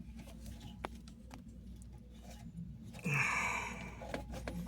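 Faint handling of plastic wiring connectors behind a car radio as they are worked loose, with a small click about a second in and a short rustling hiss about three seconds in.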